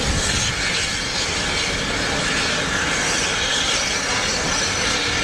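Passenger carriages of a steam train rolling along the track, a steady rumble of wheels on rails.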